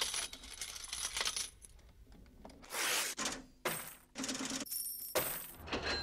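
Coins dropping and clinking in several separate bursts, with a ringing metallic tone after some of them.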